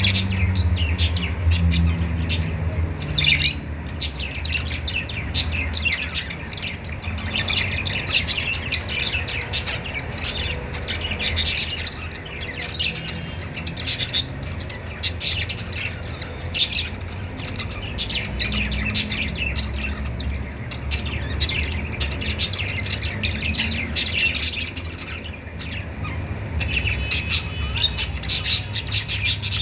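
A group of budgerigars chirping and warbling continuously, with many rapid, overlapping short calls.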